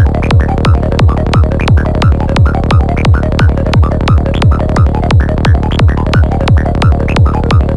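Dark psytrance track at 175 BPM: an evenly spaced kick drum about three times a second, each hit dropping in pitch, with short synth stabs and clicky percussion between the kicks.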